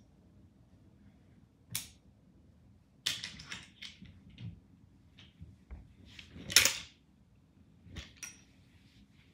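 Clothes and hangers being handled: scattered clicks and clacks, a quick run of them about three seconds in, and one louder, longer rustling clatter past the middle.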